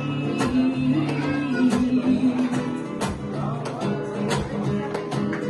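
Acoustic guitar strumming a rumba flamenca rhythm, with regular sharp strum strokes over held chords, between sung lines.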